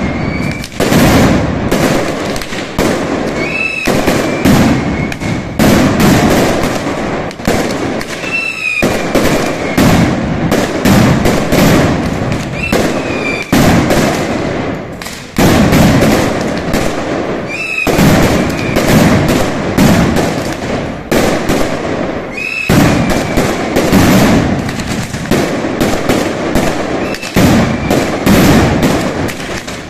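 Mascletà: strings of ground-level firecrackers exploding in a dense, continuous barrage of bangs. There is a short lull about halfway through, then a fresh, louder surge, and a short high tone that dips slightly in pitch recurs every four or five seconds over the bangs.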